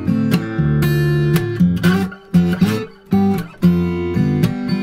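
Background music: an instrumental break in a song, with guitar strumming chords.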